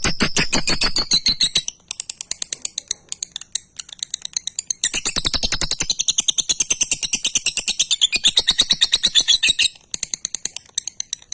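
Lovebird ngekek: a rapid, pulsing high-pitched chatter that comes in two long runs, one ending just under two seconds in and the other running from about five to ten seconds, with softer rapid clicking between and after. This drawn-out chattering is what keepers call semi-konslet.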